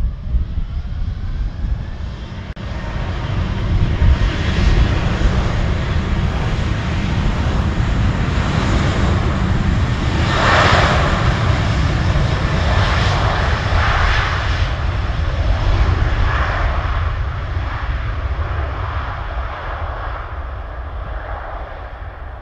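Airbus A380's four Engine Alliance GP7200 turbofans at takeoff power during the takeoff roll: a loud, deep jet rumble with a faint rising whine at the start, swelling about three seconds in, strongest through the middle and easing near the end as the jet moves away.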